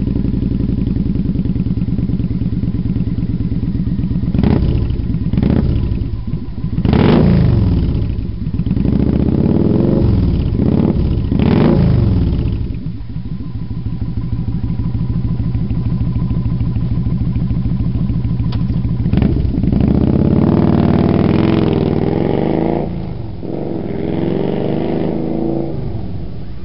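Kawasaki Vulcan VN900 V-twin through Cobra Speedster Longs exhaust fitted with homemade baffles without a hole: idling, blipped several times between about 4 and 12 seconds in, then pulling away and accelerating up through the gears, fading near the end.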